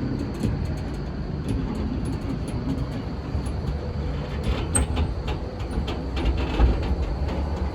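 Steady low rumble of a moving vehicle, with scattered light clicks and rattles.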